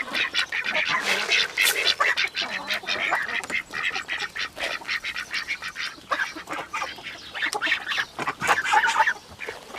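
Young geese and ducks calling over one another in a steady stream of short, overlapping calls.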